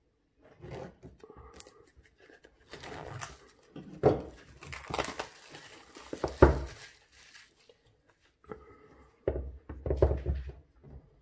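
Plastic wrapping being torn and crinkled off a smartphone box, with rustling bursts in the middle and a few knocks as the box is handled.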